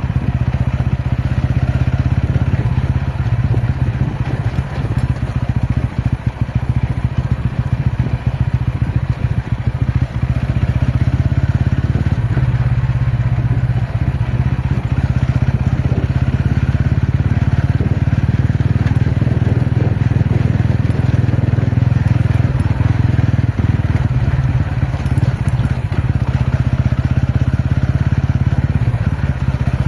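TVS Ronin motorcycle's single-cylinder engine running at a steady pace while riding off-road, with a rough crackle over it.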